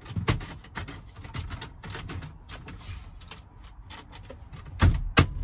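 Plastic dashboard fascia trim of a VW Transporter T5 being pressed back into place by hand: a run of light clicks and knocks as its clips seat, with two loud snaps about half a second apart near the end.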